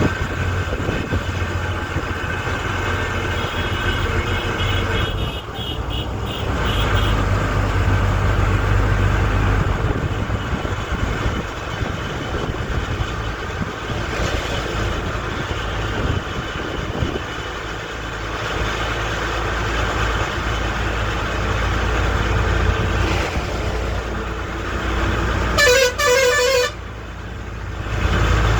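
Road vehicle running with a steady low rumble, and a horn honking once, briefly, near the end.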